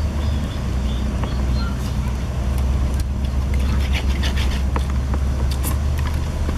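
A metal spoon clicking and scraping in a clay mortar as a sauce is stirred, with a quick run of clicks about two-thirds of the way in. A steady low rumble runs underneath.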